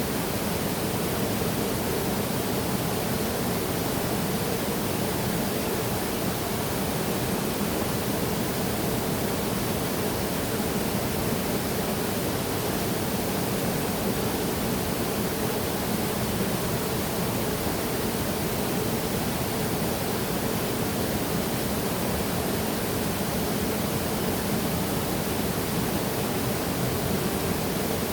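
Waterfall: a steady rush of falling water, even and unbroken, with most of its weight in the low-middle range.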